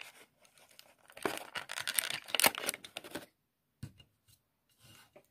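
Clear plastic packaging crinkling and rustling for about two seconds, then a few light clicks as a small die-cast toy car is handled and set down on the table.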